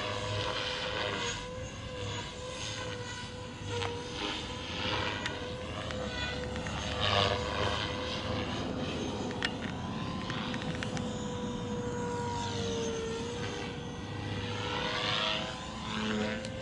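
Gaui X3 electric RC helicopter flying aerobatics overhead: a steady motor-and-rotor whine holds close to one pitch with small dips. Whooshing swells of rotor noise come and go every few seconds as it passes and turns.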